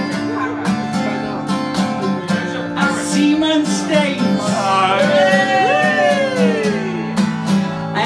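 Acoustic guitar strummed in a steady rhythm under a man's singing voice. In the second half he holds one long note that rises and then slides down.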